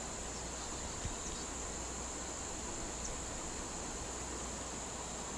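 Steady high-pitched insect chorus, with a faint tap about a second in.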